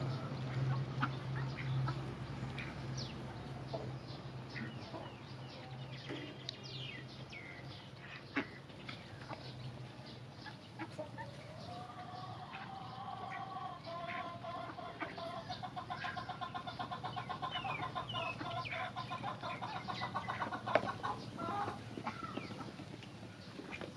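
Domestic ducks feeding at a trough of grain: many quick clicks and taps of bills in the feed, with a run of repeated poultry calls from about halfway in until near the end.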